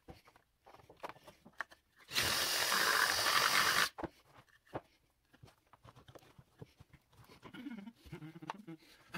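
Cordless drill running in one burst of nearly two seconds, about two seconds in, drilling into a wooden piece. Light clicks and knocks of wood and tools being handled follow.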